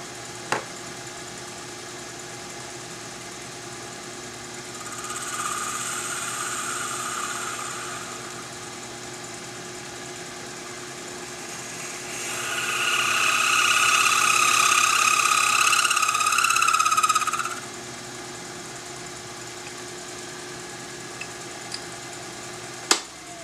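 Small lathe running steadily while a cutting tool turns down the ferrule end of a pool cue shaft, with two passes of a high-pitched cutting sound, the second longer and louder. Near the end a sharp click, after which the motor winds down.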